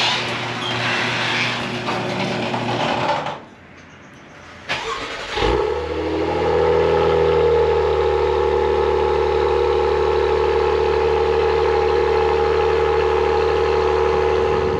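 A car engine starts about five and a half seconds in, its pitch lifting briefly and then settling into a steady idle. Before it, a steady rushing noise cuts off suddenly about three seconds in, leaving a short lull with a click.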